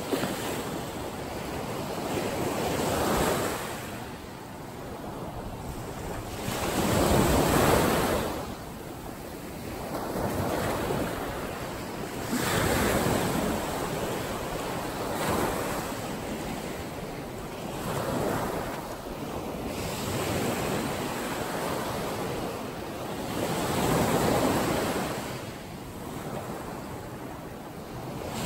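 Small ocean waves breaking and washing up a sandy beach, the surf swelling and fading every few seconds, loudest about a quarter of the way in.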